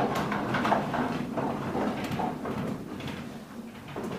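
Indistinct voices of a small audience murmuring in a room, fading after the first second or so, with scattered short clicks and knocks.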